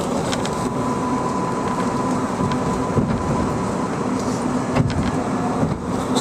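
Inside an R142A subway car running on the rails: a steady rumble with a thin whine for the first few seconds and a few sharp clicks, as the train pulls into the next station.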